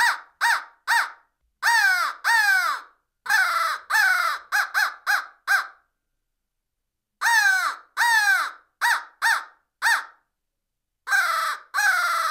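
The Grind Crow Call 2, a crow locator call, blown in runs of two to five harsh caws, each dropping in pitch, with short silent pauses between runs. It is a turkey-hunting locator call meant to make gobblers shock gobble.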